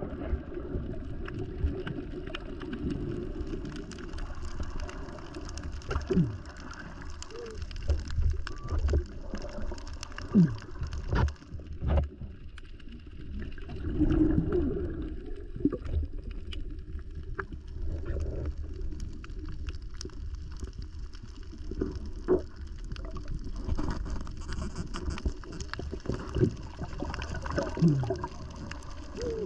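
Muffled underwater sound of a diver moving along a reef: water noise with gurgling and short gliding bubble sounds, and many scattered sharp clicks.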